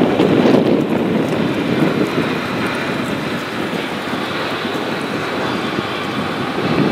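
Double-stack intermodal container cars rolling across a steel trestle bridge: a steady rumble, a little louder in the first second.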